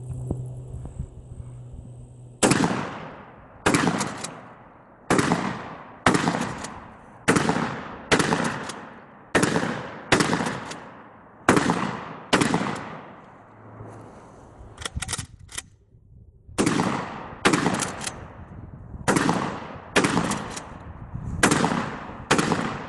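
DP-12 12-gauge bullpup pump shotgun firing light target loads in a long string, roughly one shot a second, each shot trailing off in an echo. About two-thirds through the firing pauses for a couple of seconds with a few light metallic clicks, then resumes.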